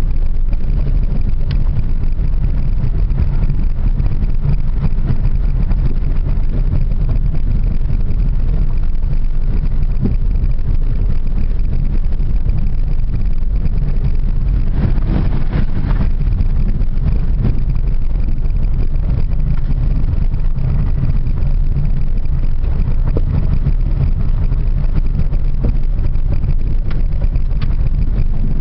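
Steady low rumble of a moving vehicle's engine and tyres on a dirt road, heard from inside the vehicle, with a brief rattle about halfway through.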